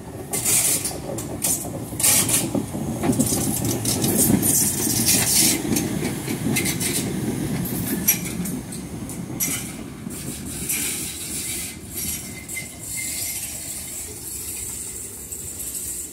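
Class 35 steam locomotive and its tender passing close by: a heavy rumble with repeated clicks and clatter of wheels over the rails. It is loudest for the first ten seconds or so, then fades as the engine moves away.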